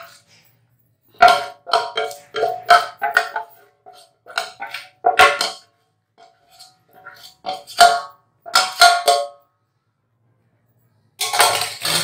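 Metal knife and spoon scraping and tapping against a steel saucepan, irregular strokes that make the pan ring briefly, as thick hot jaggery-and-peanut syrup is scraped out into a steel plate. A noisier scrape comes near the end.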